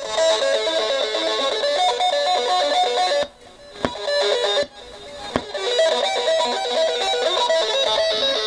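Electric guitar music played through a home-built PCL86 valve amplifier and a pair of speakers. Twice near the middle the sound drops for about half a second, and each time comes back with a sharp click.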